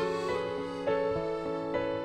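Background music: a piano playing slow, sustained notes, with new notes coming in about a second in and again near the end.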